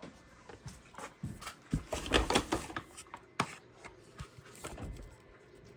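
Handling clatter of fire alarm pull station parts being worked on: scattered clicks and knocks, a dense run of knocking and rattling about two seconds in, and a single sharp click a little over a second later.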